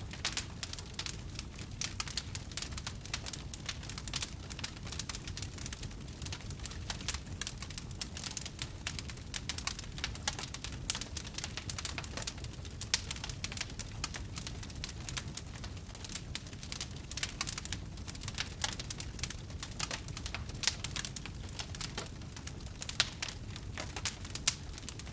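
Wood campfire crackling: frequent irregular sharp snaps and pops over a low steady rumble of the burning fire.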